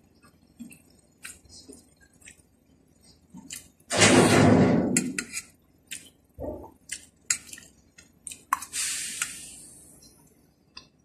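Close-up mukbang eating sounds: a metal spoon clicking and scraping on a plate, with chewing and wet mouth sounds. A loud breathy noise comes about four seconds in, and a longer hiss fades away near the end.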